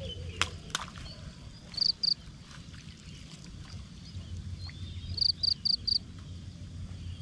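Short, high chirping calls from a small animal: two quick notes about two seconds in, then four evenly spaced notes near the end. Two sharp clicks come near the start, over a low steady rumble.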